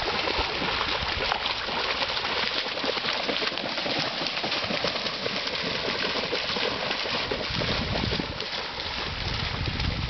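Two dogs running and bounding through shallow seawater, their legs churning up constant splashing.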